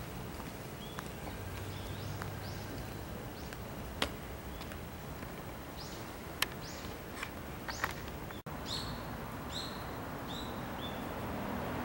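Birds calling outdoors: short high chirps, scattered at first and then repeated in a quicker run after a brief gap about eight and a half seconds in, over steady background noise, with a few sharp clicks.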